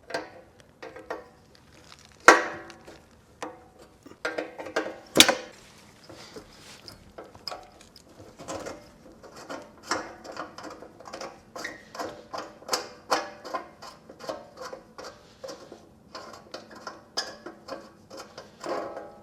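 Hand tools clinking and clicking against metal propane fittings: a few sharp, ringing clanks in the first six seconds, then a long run of quicker, lighter clicks.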